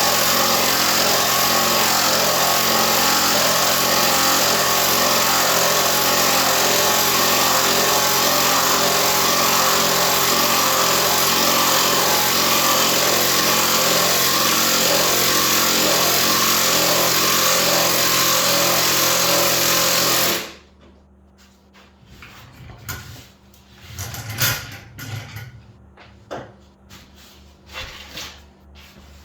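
A power tool motor runs steadily, driving the scissor jack that lifts the motorcycle, and stops abruptly about twenty seconds in. Scattered clicks and knocks follow.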